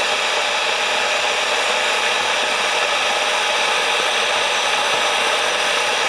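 Glass electric kettle heating cold water with a steady hiss as bubbles begin rising from the bottom, well before the boil.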